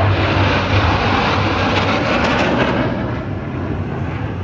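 Jet engines of a four-ship formation of military jets flying past, a loud rumbling roar that eases off after about three seconds.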